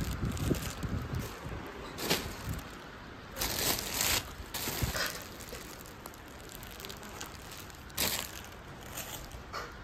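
Clear plastic wrapping on bundled doormats crinkling in several short bursts, with quieter rustling between them.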